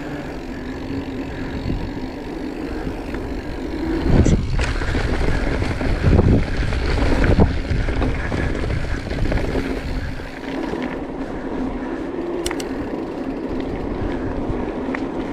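Marin Mount Vision 8 full-suspension mountain bike rolling along on knobby tyres, a steady tyre hum over pavement with wind on the microphone. From about four to eight seconds in there are louder thumps and rattles as the bike rides over rougher ground.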